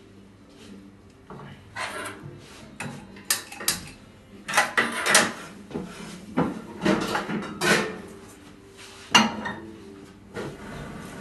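A silicone spatula stirring eggs in a frying pan on a gas burner: irregular scraping, with knocks and clatters of the spatula and pan. The loudest knocks come between about four and eight seconds in.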